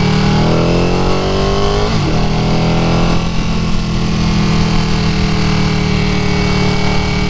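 Ducati Panigale 959 twin-cylinder engine under way: the revs climb for about two seconds, drop sharply at a gear change, climb briefly again, then hold steady at cruising speed.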